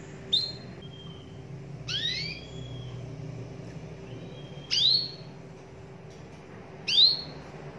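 Domestic canary calling: four short, rising whistled notes about two seconds apart, the second one longer and doubled.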